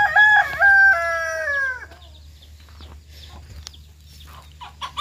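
A rooster crowing once: a call of several notes, the last drawn out and falling in pitch, over in about two seconds.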